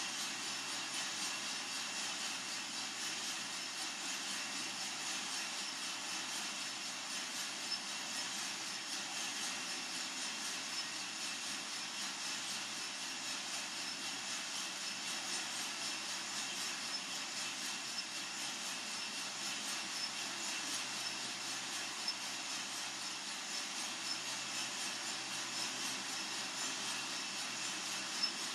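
Coffee-Tech FZ-94 lab coffee roaster running mid-roast: a steady whoosh of its fan and the turning drum with the beans tumbling inside, with a few faint ticks.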